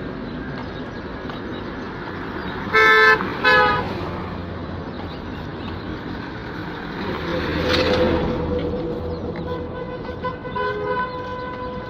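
Road traffic with a vehicle horn honking twice in short loud blasts about three seconds in, then a vehicle passing close around eight seconds and a fainter horn sounding near the end.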